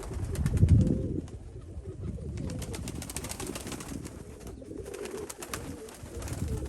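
Nikolaev pigeons cooing in a loft, several low calls overlapping, with a loud low rumble about half a second in and scattered sharp clicks.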